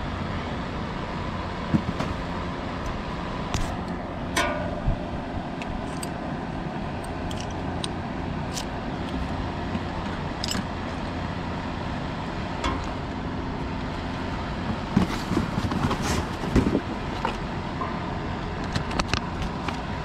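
Light clicks, taps and rustling of parts and packaging being handled over a steady background hum; the handling gets busier about three quarters of the way through.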